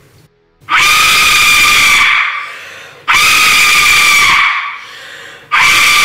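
Aztec death whistle, a clay skull-shaped wind instrument, blown in three loud, scream-like, piercing blasts about two and a half seconds apart. Each starts suddenly, holds for about a second and a half, then trails off.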